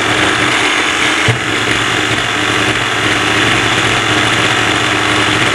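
Homemade cardboard diesel engine model running with a steady, even engine-like idle, with one short knock about a second in.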